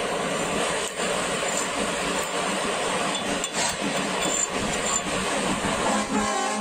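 Steady mechanical workshop noise, with a few light metallic clinks of a hand tool against the welded steel plate.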